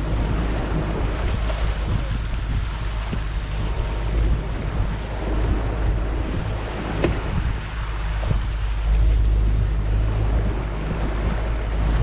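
Small boat's outboard motor running steadily at low speed, with water rushing past the hull and wind buffeting the microphone. A single sharp tick sounds about seven seconds in.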